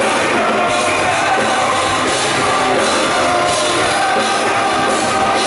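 Rock band playing live in an arena, with the lead singer's voice over guitars and drums.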